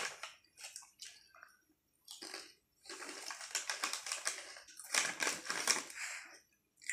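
A plastic chip packet crinkling as a hand rummages inside it, with crisp crunches of multigrain chips being chewed. The longest stretches of crinkling come about halfway through and again a second later.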